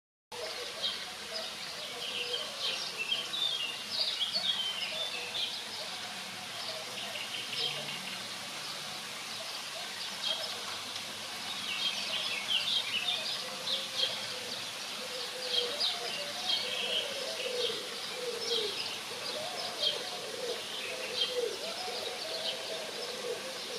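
Small songbirds chirping and twittering: many short, high chirps in clusters, busiest in the first few seconds and again from about twelve seconds on.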